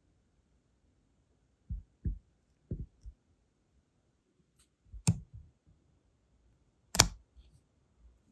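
A brass wax-seal stamp and a hardened wax seal handled on a rose quartz coaster. There are three or four soft low knocks about two to three seconds in, then two sharp clicks about five and seven seconds in, the second the loudest, as the stamp and seal are lifted off the stone.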